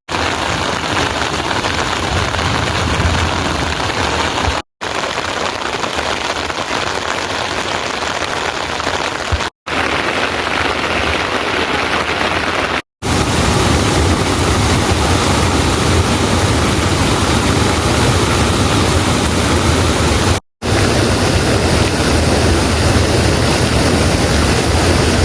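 Steady hiss of heavy rain falling, in several short stretches broken by brief dropouts to silence. The later stretches carry a heavier low rumble.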